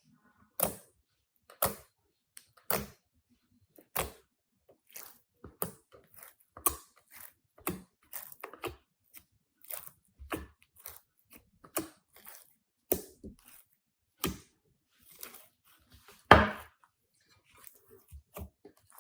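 Crunchy slime being pressed and squeezed by hand, giving sharp crackling pops about once a second, with one louder, longer crackle near the end.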